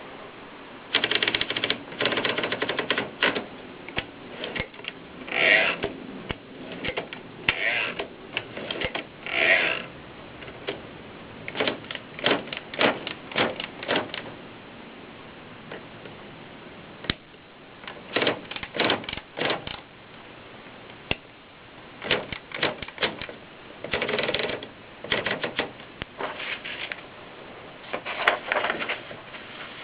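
Kolibri portable typewriter being typed on: runs of sharp keystroke clacks in bursts with short pauses between them.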